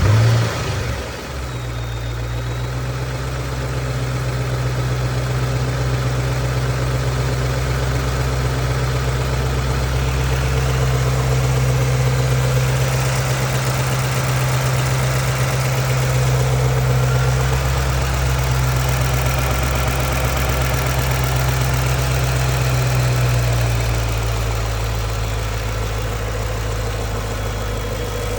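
Ford 4.6-litre three-valve V8 of a 2010 Mustang GT flaring just after starting, then idling steadily, settling to a slightly lower idle about 23 seconds in. Under the idle is the ticking of the fuel injectors and a subtle intermittent tap that the owner is investigating.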